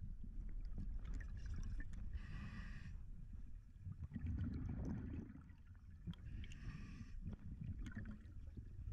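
Scuba regulator breathing heard underwater. Two hissing inhalations come about two seconds in and again near seven seconds, with a low rumbling gush of exhaled bubbles around four to five seconds in, over a steady low water rumble.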